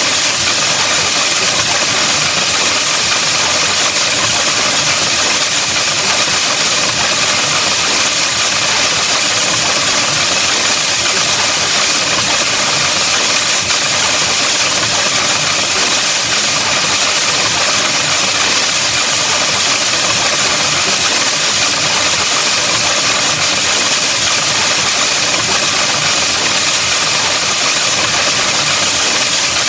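Steady, loud, harsh buzzing noise that does not change throughout: a digitally vocoded sound effect.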